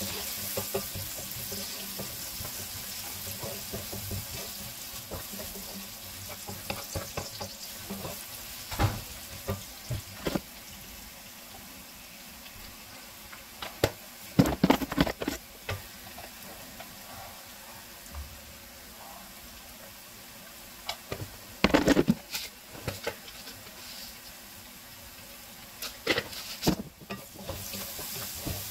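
Diced carrot and onion sizzling as they fry in a steel pan, a steady hiss. A wooden spatula stirs and scrapes them in short bouts, knocking against the pan, loudest about a quarter and three quarters of the way through.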